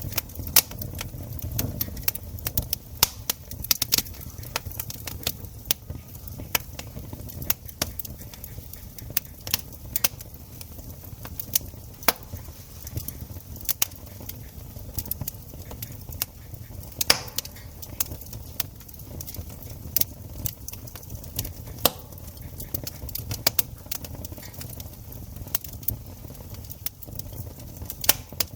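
Wood campfire crackling: irregular sharp pops and snaps, many each second, over a low steady rumble.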